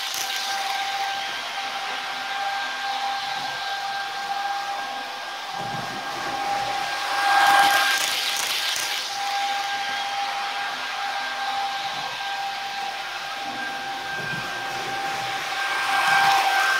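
Sound decoder in an H0 model of an ÖBB 1116 Taurus electric locomotive, playing its steady high electric traction whine while the model runs at speed. A rushing noise swells twice, about halfway through and near the end, as the train passes close by.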